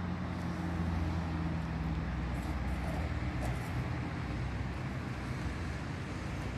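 A steady low engine hum over a haze of outdoor traffic noise.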